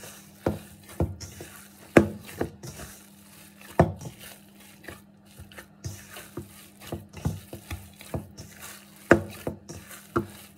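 Soft, oily dough being kneaded by hand in a stainless steel bowl: irregular thuds as it is pressed and turned against the bowl, with a few louder knocks.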